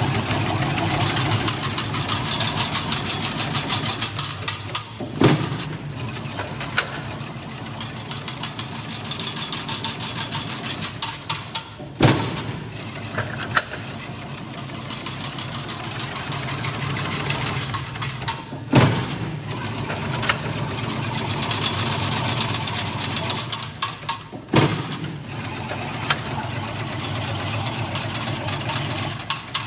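Automatic chain-link fence weaving machine working 4 mm wire: a steady mechanical run with a fast, even clatter. A loud, sharp clank comes four times, about every six to seven seconds.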